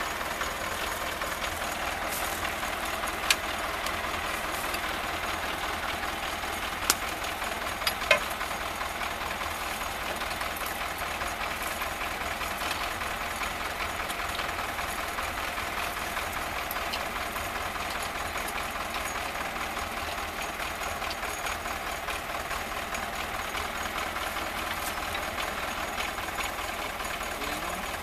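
Farm tractor engine idling steadily, with a few short sharp clicks in the first eight seconds.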